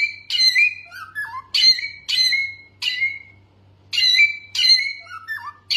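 A songbird singing energetically, repeating loud, harsh phrases of several quick notes that slide down in pitch, mixed with softer lower whistled notes, with a brief pause a little past halfway.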